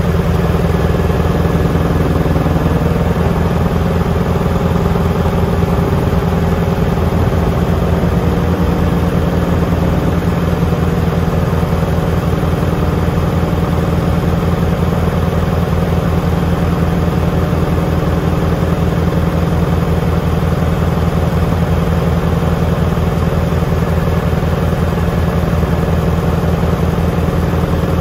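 Tractor diesel engine running steadily at one constant speed, with a low, even rhythmic drone.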